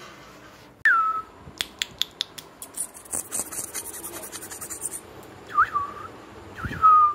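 Doberman puppies whining: three short, high whimpers, each dropping in pitch and then holding, about a second in and twice near the end, with light ticks and scratches in between.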